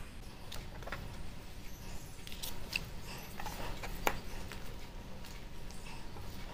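Faint clicks and taps of a chef's knife and hands handling a chicken breast on a plastic cutting board, with one sharper knock about four seconds in.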